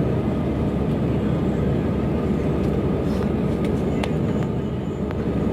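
Steady cabin noise inside an Airbus A319 climbing after takeoff: an even, low rumble of engines and airflow, with a couple of faint clicks about three and four seconds in.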